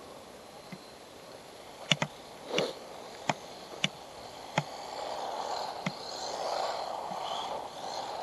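A handful of short, sharp clicks and taps, irregularly spaced about half a second to a second apart, over faint background noise.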